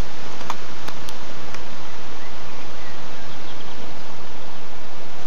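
Steady outdoor background hiss with no distinct source, and a few clicks in the first two seconds.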